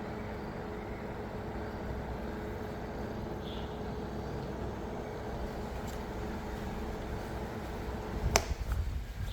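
Small electric motor of a homemade battery-operated fan running with a steady hum, then a sharp click near the end as the hum stops, like a switch turned off.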